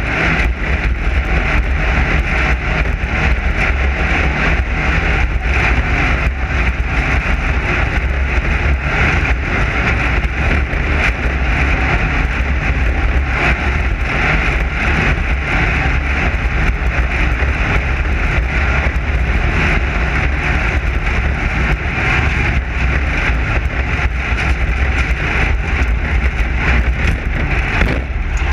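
Class 9 desert race buggy's air-cooled Volkswagen engine running at speed over rough desert terrain. Engine and road noise are loud and steady throughout.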